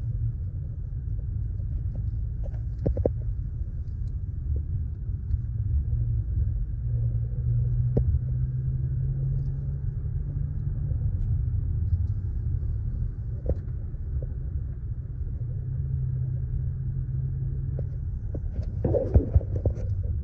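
Steady low rumble of a car's road and engine noise heard from inside the cabin while driving, with a few faint knocks. Near the end comes a cluster of louder bumps as the recording phone is moved down.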